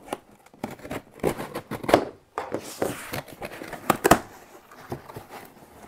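A cardboard shipping box being opened by hand: cardboard flaps and packing tape scraping and crackling, with irregular sharp knocks, the loudest about two and about four seconds in.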